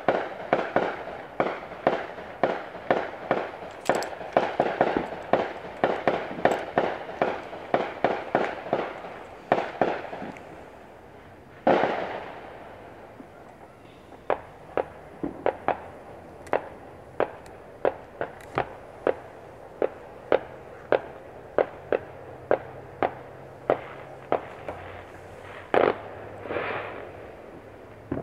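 Neighbourhood consumer fireworks going off in a long run of sharp bangs that echo. For about ten seconds they come quickly, roughly three a second; one big bang follows a couple of seconds later. Then comes a steadier string of about two bangs a second, with another loud bang near the end.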